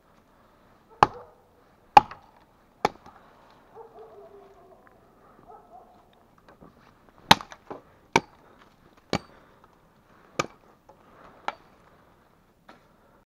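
Axe chopping wood: sharp single blows about a second apart, three at first, then after a pause a run of six more.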